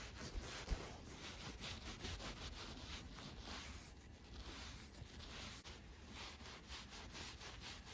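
Faint, scratchy rubbing and brushing on a plush toy's synthetic fur: repeated quick, irregular strokes, with a soft bump just under a second in.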